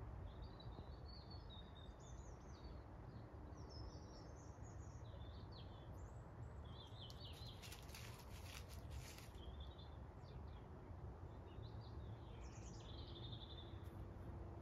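Faint high chirps of small birds scattered over a low steady outdoor rumble, with a quick burst of rapid clicks about halfway through.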